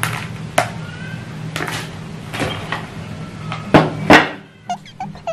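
Crinkling foil snack bag shaken out over a plate, with crisp snack pieces spilling, then two loud knocks about four seconds in as the plate and bag are set down on a wooden table. A few small clicks follow.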